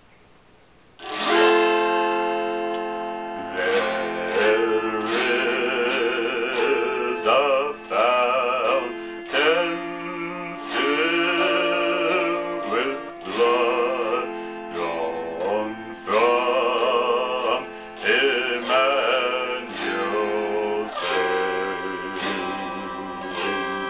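Autoharp strummed: a first chord rings out about a second in, then chords are struck roughly once a second and left to ring. A man's voice sings slowly over them.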